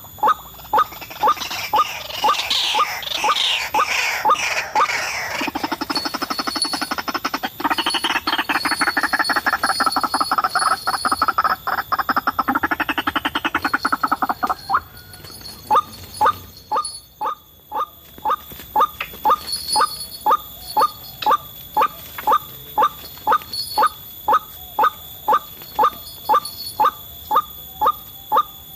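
White-breasted waterhens calling: a steady, monotonous series of short 'kwak' notes, about two a second. From about one to fifteen seconds in, a loud, rapid bubbling chorus of calls runs over it and then breaks off.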